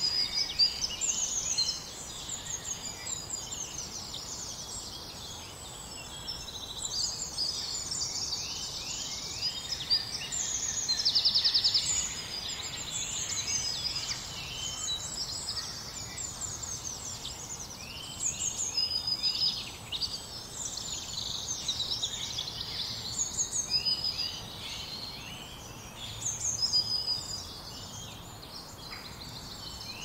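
Several songbirds singing at once in spring woodland, a chorus of overlapping whistles, chirps and rapid trills. The loudest stretch is a fast trill about eleven seconds in.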